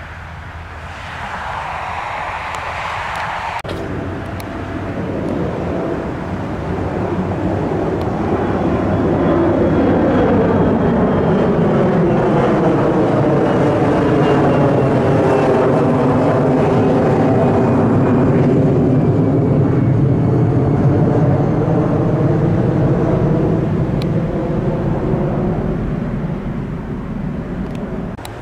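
Jet airliner passing low overhead: the engine noise swells over several seconds, stays loud for about ten seconds, then fades, with a thin engine whine that slides down in pitch as it goes by. A brief rush of noise in the first few seconds stops abruptly.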